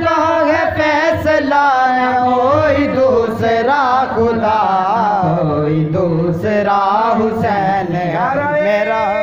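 A man singing an Urdu devotional song in praise of Hussain solo into a handheld microphone, with long held notes that bend and waver up and down in ornaments.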